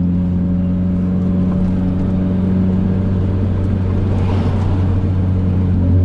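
Lada 2114's engine and loud exhaust droning steadily at cruising speed, heard from inside the cabin. Road noise rises briefly about four seconds in, over the rough surface.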